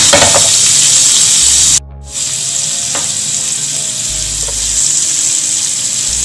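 Gola kababs sizzling in hot oil and melting butter in a frying pan. The sizzle cuts out briefly about two seconds in, then carries on a little quieter.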